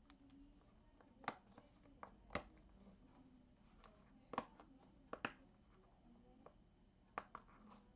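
Hands working at cardboard packaging, trying to open it: about six sharp clicks and taps over faint rustling.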